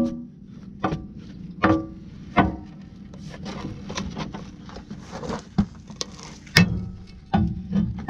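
Metal pry bar jabbing into hard-packed gumbo mud and straw that plugs a ditcher, breaking it loose. Sharp strikes with a brief metallic ring come about once every 0.8 s over the first few seconds, then quieter scraping and lighter hits, and a few more sharp strikes near the end.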